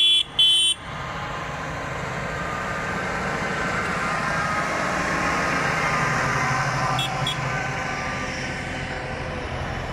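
A horn sounds in short blasts that stop less than a second in. Then a New Holland tractor's diesel engine drives past close by, getting louder to a peak around the middle and fading as it moves on. Two brief clicks come about seven seconds in.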